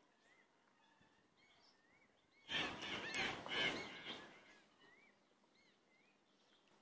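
Small birds chirping faintly outdoors in short rising-and-falling calls repeated every second or so. About two and a half seconds in there is a louder stretch of under two seconds of noise and denser chirping.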